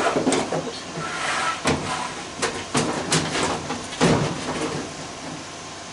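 Sheet-metal furnace parts clanking and scraping as a component is pulled out. There are a series of sharp knocks for the first four seconds, then it goes quieter.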